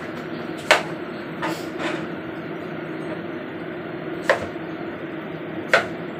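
Chef's knife slicing through papaya and striking a plastic cutting board: about five sharp, irregularly spaced knocks, over a steady background hum.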